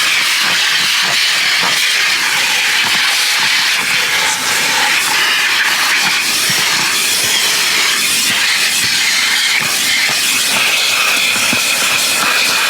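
Vacuum cleaner hose sucking air while vacuuming out a car's interior: a loud, steady rushing hiss.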